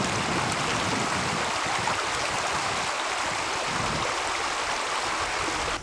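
Rushing water of a stream: a steady, even hiss.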